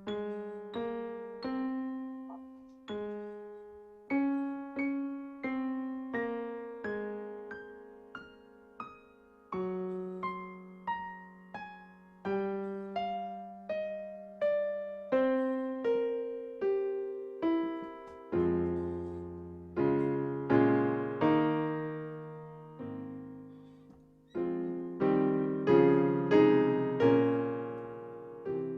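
Solo piano playing a slow melody of single struck notes that ring and fade, filling out with low bass notes and fuller chords from about two-thirds of the way through and growing louder near the end.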